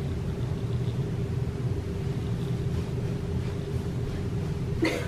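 Steady low rumble with a faint steady hum underneath: constant background noise with no speech, until a voice breaks in just before the end.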